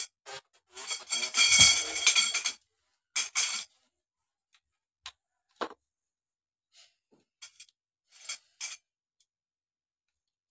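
Thin metal tubes and plastic connectors of a shoe rack rubbing, scraping and clicking as the parts are pushed together. A longer scraping stretch comes in the first few seconds, then a few separate clicks and short scrapes.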